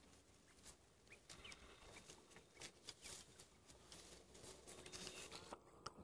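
Near silence, with faint scattered crackles and rustles of African elephants feeding on dry branches close by, and a couple of brief high chirps about a second in.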